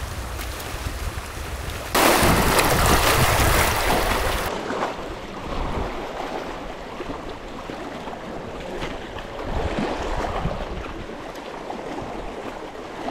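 Small lake waves lapping and washing over the rocks at the shoreline, with wind noise on the microphone. A louder rushing noise starts suddenly about two seconds in and cuts off sharply about two and a half seconds later.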